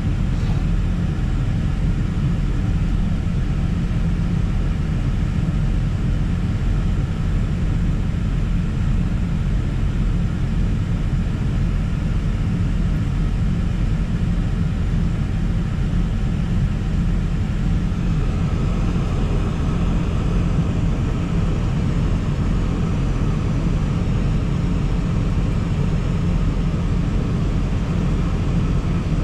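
New Holland CX5090 combine running steadily as it unloads shelled corn through its unloading auger: a continuous engine drone. A higher hum joins about eighteen seconds in.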